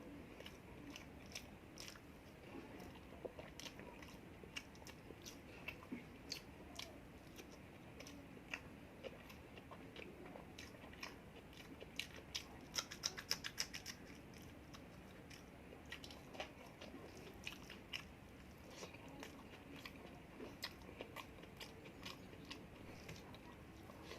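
Close-up eating sounds: a person chewing and biting a meal of chicken roast and pulao rice, with many short wet mouth clicks. A quick run of louder crisp crunches comes about halfway through.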